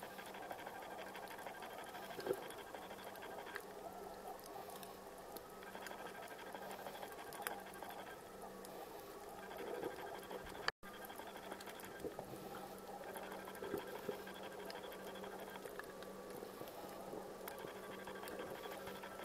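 Faint underwater ambience picked up through a camera's waterproof housing: soft crackling and scattered clicks over a steady electronic hum and whine that switch on and off in stretches. The sound drops out for an instant about eleven seconds in.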